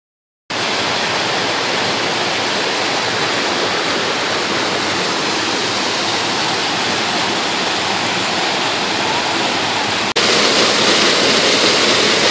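Waterfall rushing: a steady, even sound of falling water with no speech. It drops out briefly at the very start, and about ten seconds in it cuts to a louder stretch of the same rushing water.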